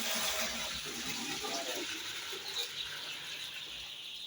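Water sloshing and splashing in a container, loudest in the first two seconds: drinking water with the dissolved Newcastle disease/infectious bronchitis vaccine being mixed.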